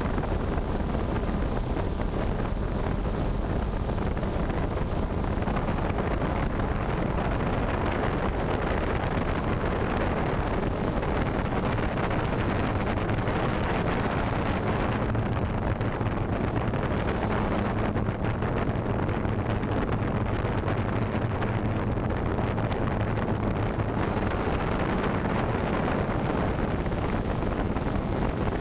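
Steady propeller and motor noise from a small camera-carrying multirotor drone, heard through its onboard camera's microphone, with wind noise on the mic throughout.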